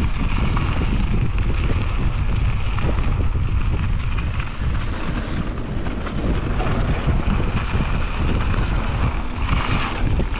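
Wind buffeting the microphone of a GoPro on a mountain biker descending a trail at speed, with steady rumbling rolling noise from the bike on the dirt and a sharp click or two near the end.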